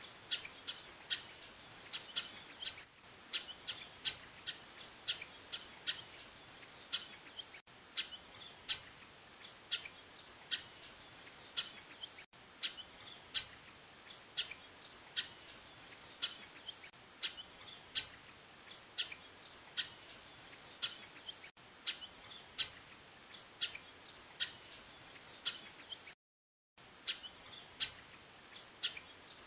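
Female chestnut-capped blackbird (Chrysomus ruficapillus) calling: short, sharp call notes repeated about once or twice a second in a steady series, with a brief break near the end. A steady high insect trill runs underneath.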